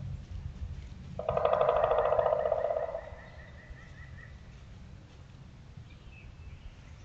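Woodpecker drumming: a loud, fast roll of taps on wood starting about a second in and lasting nearly two seconds. It trails off in fainter taps, over a steady low rumble.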